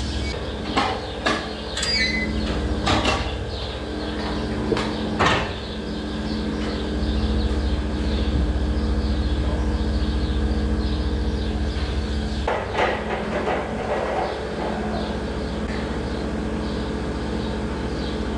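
Steady hum of dairy-barn machinery under sharp metallic clanks and knocks from steel pen gates and rails, several in the first five seconds and a few more about two-thirds of the way through.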